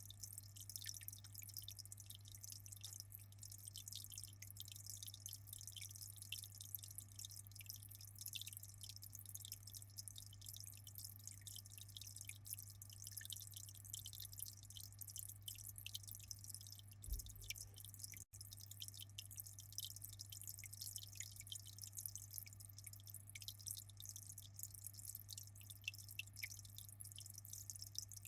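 Aquarium water trickling and dripping, with many small drops and splashes over a steady low hum.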